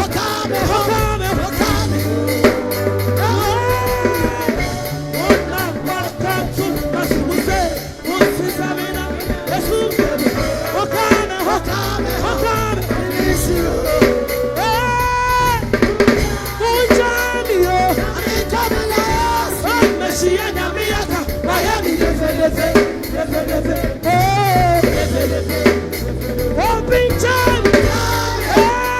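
Upbeat gospel praise music: a singing voice over a drum kit with snare and a steady bass line.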